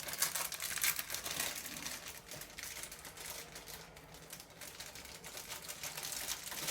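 Rustling and irregular light clicks from hands handling a SATA cable and plastic computer parts, busiest in the first couple of seconds and then quieter.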